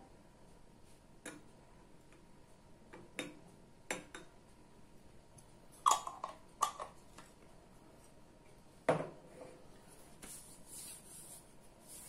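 Glass jars and a glass beaker handled on a table: a few scattered light knocks and clinks a second or more apart, the loudest about nine seconds in.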